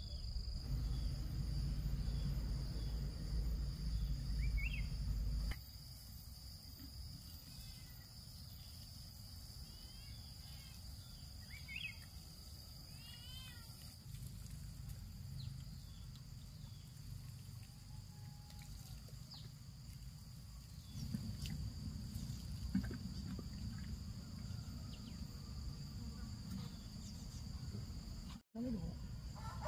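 Outdoor ambience: a steady high insect drone with a few short bird chirps, over low rumbling noise that stops suddenly after about five seconds.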